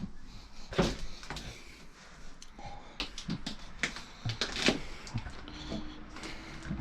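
Irregular light knocks and clicks, a few a second, from handling and moving about inside a gutted fibreglass boat hull, with a faint steady hum near the end.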